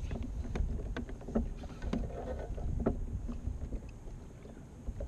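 Small waves lapping and slapping against a kayak hull in short, irregular knocks, over a steady rumble of wind on the microphone.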